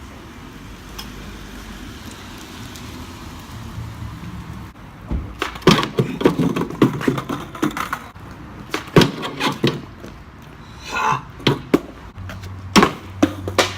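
Skateboard wheels rolling, then a string of sharp clacks and slams as the board is popped, hits and lands during a trick attempt.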